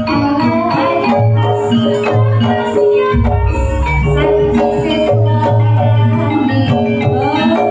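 Live jaranan accompaniment music for a dance: rapid melodic strokes on mallet-struck percussion over deep repeated drum strokes, with a held melody tone through much of it.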